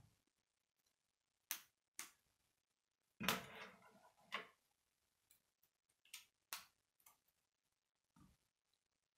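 K'nex plastic pieces clicking as connectors are snapped onto the frame: a series of short, sharp clicks at irregular intervals, with a longer rattle of loose pieces a little over three seconds in.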